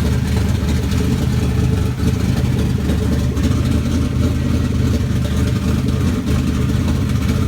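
Turbocharged Toyota 1UZ-FE V8 idling roughly with no exhaust fitted, its lumpy, uneven idle coming from big custom Kelford cams of 286 duration.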